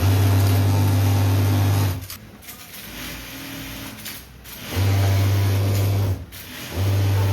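Industrial sewing machines stitching denim in three runs of a steady motor hum with a fast buzz, each a second or two long, with quieter pauses between them.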